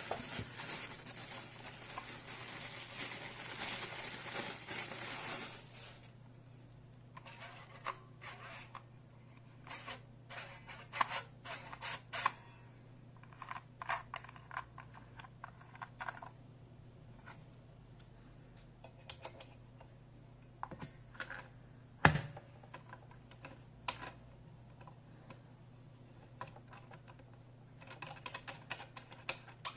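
Clear plastic film crinkling as it is pulled off a phone clamp for about the first six seconds, then scattered clicks and knocks of the plastic clamp being handled and fitted onto the holder arm's ball joint, with one sharp click about 22 seconds in.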